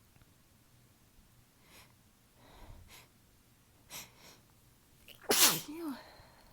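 A person sneezing: a few quick breaths build up, then one loud sneeze about five seconds in, its voice dropping in pitch, with a short voiced tail. It is one sneeze of an allergy-driven, tickly sneezing fit.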